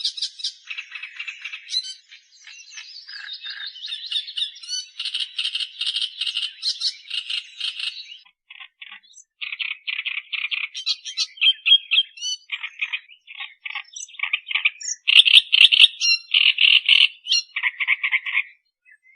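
Australian reed warbler singing: harsh, grating chattering phrases of rapidly repeated notes. The song runs without a break at first, then comes in separate short bursts with brief pauses between them.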